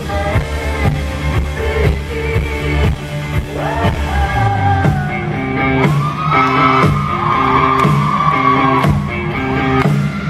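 Live pop-rock song: a woman singing over a band with drums and bass, a long held high note in the middle of the stretch.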